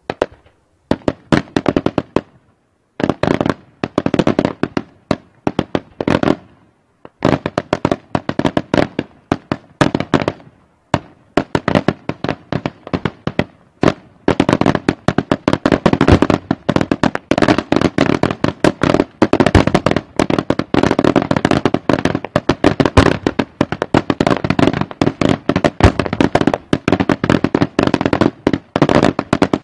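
Daytime fireworks: rapid strings of sharp bangs from aerial shells bursting into coloured smoke, coming in short volleys with brief gaps at first, then from about halfway an almost unbroken run of bangs.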